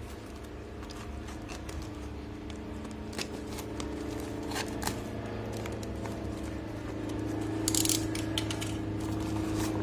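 A courier parcel being opened by hand: scattered clicks and scrapes of the packaging being handled, with a short tearing rip about eight seconds in, over a steady low hum.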